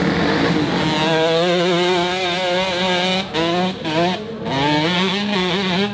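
Two-stroke dirt bike engine revving hard and held high on a steep, loose climb. The pitch wavers, and the throttle is chopped briefly a few times past the middle before it picks up again.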